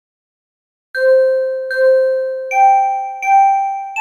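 Intro jingle of struck, bell-like chime notes, starting about a second in: four notes about three-quarters of a second apart, each ringing and fading, the first two lower and the next two higher.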